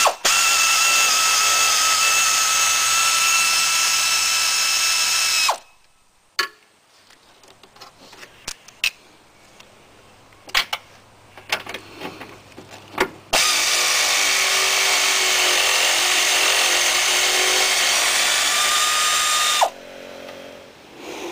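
Air ratchet spinning out the 15 mm nuts on a Pontiac Sunfire's upper motor mount: two runs of about five and six seconds, each a steady whine over air hiss, the first dropping in pitch as it stops. Between the runs come a few light clicks and knocks of the socket and nut.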